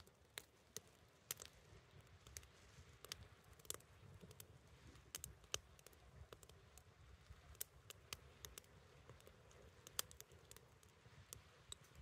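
Wood fire crackling in a small OneTigris folding camp stove: irregular sharp pops and snaps, several a second, a few louder ones standing out, over a faint low rumble of the burning.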